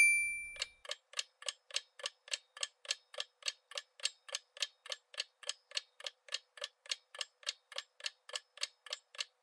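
Countdown-timer clock-ticking sound effect: a steady run of high, crisp ticks, about four a second, marking the seconds left to answer. A ringing ping fades out during the first half second.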